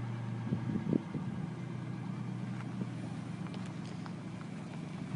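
Pickup truck engine idling with a steady low hum, a little fainter after about three seconds, with a few light footsteps crunching on gravel.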